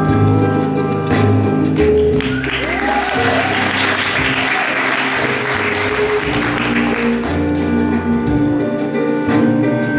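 Music playing throughout, with audience applause swelling up about two and a half seconds in and dying away around seven seconds.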